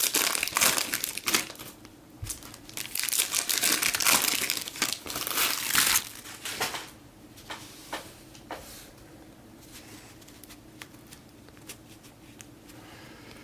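Foil trading-card pack wrappers being torn open and crinkled for about the first six seconds, then a quieter stretch with a few light clicks of cards being handled.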